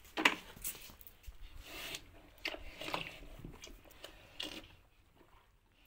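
Cow drinking water from a plastic bucket: a run of irregular slurps and gulps that stops about four and a half seconds in.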